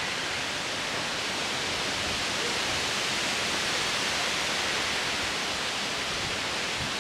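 Steady rustling hiss of wind through the leaves of the surrounding trees, swelling slightly midway.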